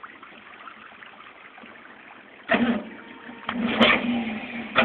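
4x4 truck engine running low, then about two and a half seconds in revving hard as the truck churns through deep mud, with a steady pulsing engine note.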